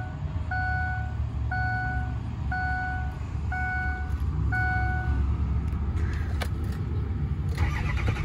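A car's electronic warning chime beeping steadily about once a second, each beep about half a second long, stopping about five seconds in, over the low hum of a running vehicle. A louder rushing noise comes up near the end.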